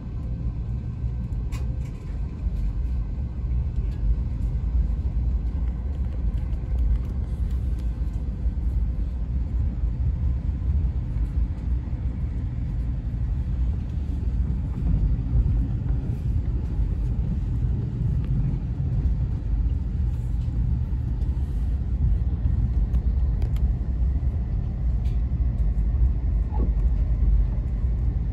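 Amtrak Acela train running along the track: a steady low rumble with a few faint clicks.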